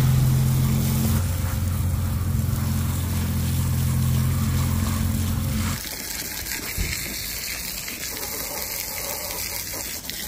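An engine running steadily at a low, even pitch, which ends abruptly about six seconds in, leaving a quieter hiss.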